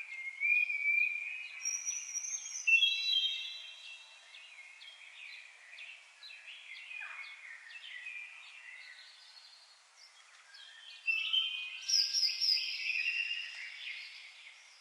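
Songbirds singing and chirping, several voices overlapping in whistled notes and quick chirps. The song swells in the first few seconds and again about eleven seconds in, with sparser chirping in between.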